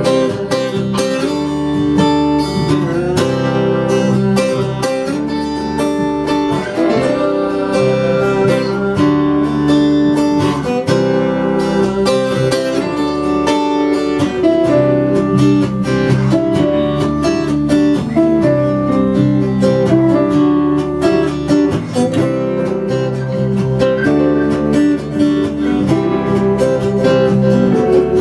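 Instrumental break of a song: acoustic guitar strummed in a steady rhythm, with no singing.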